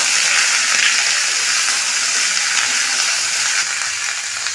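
Diced vegetables (carrot, green beans, potato, papaya) sizzling steadily in a little hot mustard oil in a wok as they are stirred, being lightly fried to take off their raw edge.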